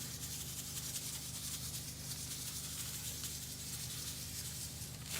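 Table salt poured in a steady stream into a plastic bin of vinegar, a continuous grainy hiss.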